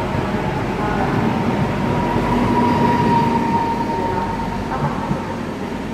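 PESA Elf EN76 electric multiple unit running at the platform, with a steady electric whine that swells about two seconds in and fades by about four seconds, over a continuous rumble.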